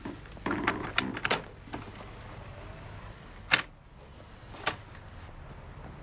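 Sounds of people moving about a room: a run of soft knocks and clicks in the first second and a half, then one sharp click about three and a half seconds in, the loudest, and a fainter one about a second later, over a low steady hum.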